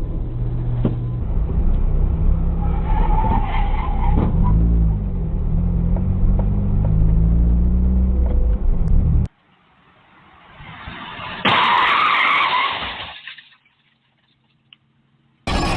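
A heavy engine runs with a loud, low drone whose pitch shifts. It cuts off abruptly; a noise then rises and turns into a loud harsh rush for about two seconds before it fades away.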